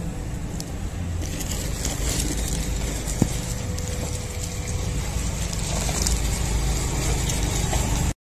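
Plastic courier mailer bag crinkling as it is handled, over a steady low rumbling noise, with a single click about three seconds in.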